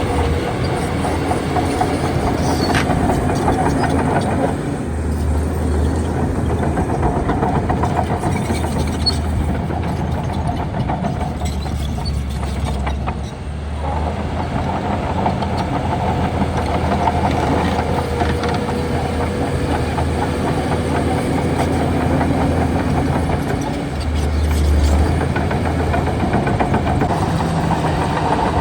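Shantui DH17C2 crawler bulldozer's diesel engine running under load while it pushes soil, with the clatter of its steel tracks; the engine's low rumble swells and eases several times.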